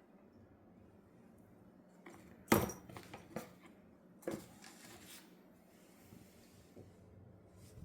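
Cat toys tossed onto the floor: a few light knocks and rustles, the loudest about two and a half seconds in, with two smaller ones about one and two seconds later, in an otherwise quiet room.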